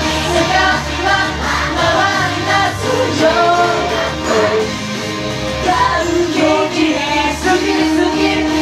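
Live J-pop performance: a group of young male singers singing into handheld microphones over a loud pop backing track.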